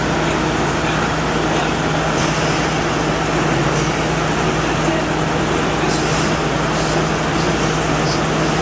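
Window air conditioner running steadily: fan air rushing with a steady low hum from the compressor, which runs continuously and has not cycled off in about two weeks.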